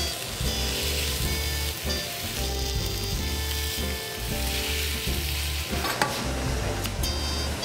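Pork belly sizzling as it sears in a hot frying pan, over soft background music. Near the end come a couple of sharp clicks, kitchen scissors snipping through kimchi.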